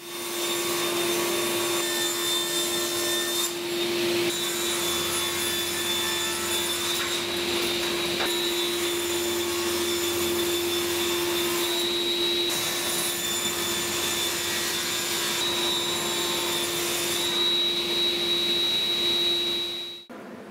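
Table saw running while making bevelled rip cuts through hardwood strips: a steady motor hum with a high whine over the noise of the blade in the wood. The sound shifts abruptly a few times and stops suddenly near the end.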